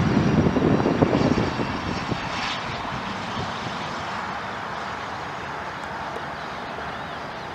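Small twin-engine business jet rolling out just after touchdown: jet engine noise with a low rumble, strongest in the first second or so, then fading steadily, with a thin high turbine whine over it.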